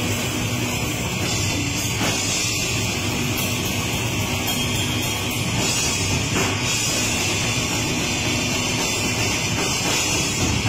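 Heavy rock band playing live on drums and electric guitar, loud and steady throughout.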